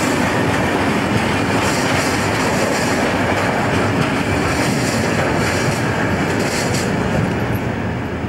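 Freight wagons, Polybulk covered hoppers and tank wagons, rolling past close by: a steady, loud rumble of wheels on the rails with a clatter over the rail joints.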